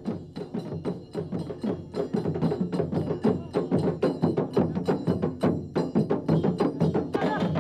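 Fast, steady folk drumming on a large rope-tensioned barrel drum, with small brass hand cymbals clashing along with the beats. It gets louder about two seconds in.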